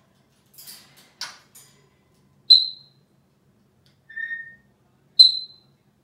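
African grey parrot whistling: two loud, short, high whistles about three seconds apart, with a softer, lower whistle between them. Two faint raspy noises come about a second in.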